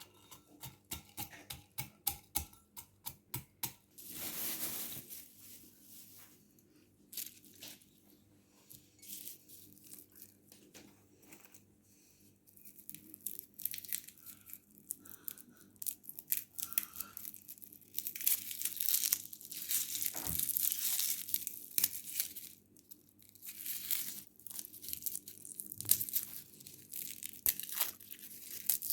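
Kitchen handling noises from preparing food: a quick run of small clicks at the start, then scattered clicks, then longer stretches of rustling noise from about halfway in.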